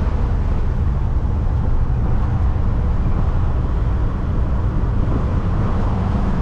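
Loud, steady motor-vehicle and road noise with a heavy, fluttering rumble, like wind buffeting the microphone from a moving vehicle.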